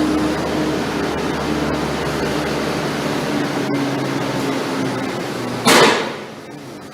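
A vehicle engine runs steadily with a faint hum. Near the end a loud, short burst of noise cuts in, after which the engine sound drops away.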